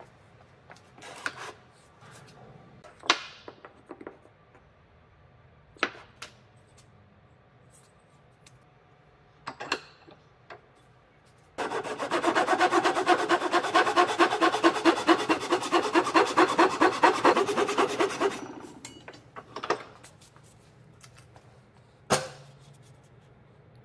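Japanese-style handsaw cutting the protruding end of a wooden dowel handle flush, with about six seconds of fast, even sawing strokes near the middle. Before and after it come a few separate knocks of wooden pieces and tools set on the workbench.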